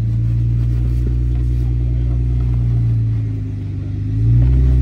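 Off-road vehicle engine running at low trail speed. It eases off briefly about three and a half seconds in, then picks up again, louder, just after four seconds.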